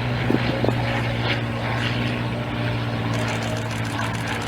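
Piston-engined propeller aircraft droning steadily, with one strong, unchanging low engine note.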